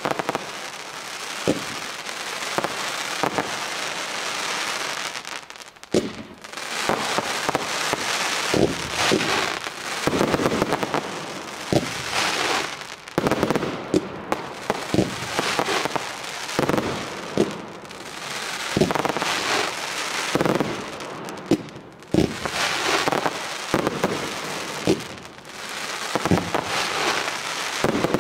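Fireworks display of rising comets and aerial shells: many sharp bangs of launches and bursts over a dense rush of noise that swells and fades several times, dipping briefly about six seconds in and again near 22 seconds.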